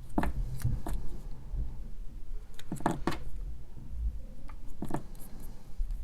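Handling noise from a plastic model kit being worked on by hand: a few light clicks and taps of plastic parts and a marker, with low rumbles of hands moving close to the microphone.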